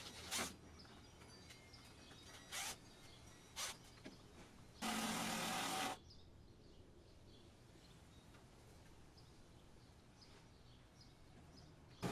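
Power drill driving screws into the camper floor: three short spurts, then one run of about a second near the middle.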